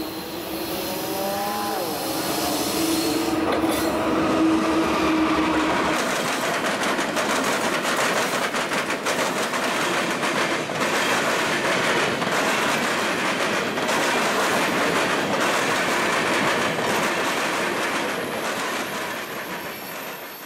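Norfolk Southern freight train passing close by. Its diesel locomotives bring a steady hum for the first few seconds, and then the loaded covered hopper cars roll past with a continuous rumble and the rapid clickety-clack of wheels over the rail joints.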